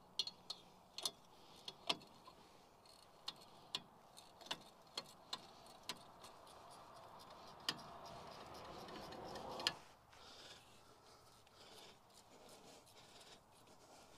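Hand tools and metal parts worked at a Jeep Cherokee XJ front hub as its bearing bolts and backing plate are lined up. A dozen or so sharp, irregular metal clicks, then a scraping that builds for a few seconds and ends in a louder click about ten seconds in.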